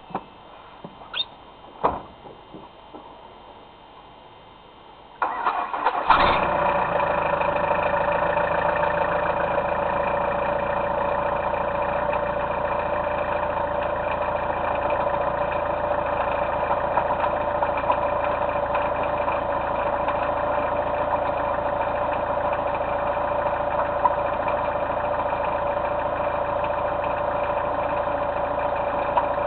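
A few sharp clicks, then about five seconds in the van's engine cranks briefly, catches about six seconds in and keeps running steadily, with a strong steady whine on top. The engine is being restarted after it died; the owner guesses a slipped timing belt and hears a noise like cracking metal on restarting.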